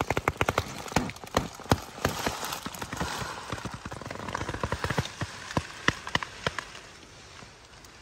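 Blizzard wind and blown snow striking a frosted tent, giving a quick, irregular patter of sharp ticks and snaps on the fabric that thins out after about five seconds.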